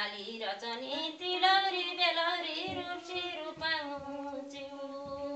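A woman singing a Nepali sangini folk song unaccompanied, drawing out long held notes that waver up and down.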